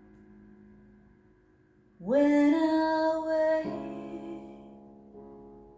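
Slow solo piano with a woman singing: faint held piano notes, then about two seconds in she enters on a wordless note that swoops up and holds. Fresh piano chords follow and ring out, fading toward the end.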